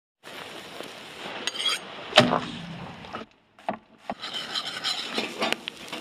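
Meat sizzling over a fire in a hinged wire grill basket, with scattered clicks and one loud metallic clank about two seconds in. The sound breaks off briefly a little past three seconds.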